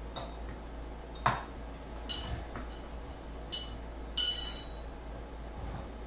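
Metal hand tools clinking on the metal screws and brackets of caster wheels as they are fastened to a shop-vac drum: a sharp click about a second in, then several ringing metallic clinks, the loudest near the end.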